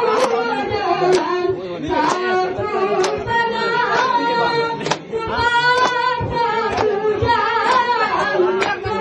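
Women singing the chant of the Gayo Bines dance, with sharp hand claps about once a second keeping the beat.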